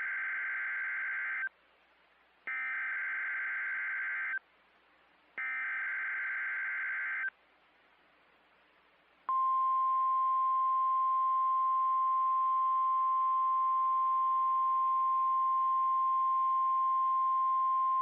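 NOAA Weather Radio alert: three bursts of buzzing digital header tones (SAME data) about a second apart, then a long steady 1050 Hz alert tone starting about nine seconds in. This is the signal that opens a broadcast tornado warning, here a test warning.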